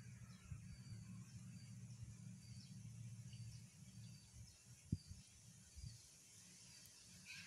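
Faint bird song: short high notes repeated every half second or so, over a low steady rumble. A single thump about five seconds in.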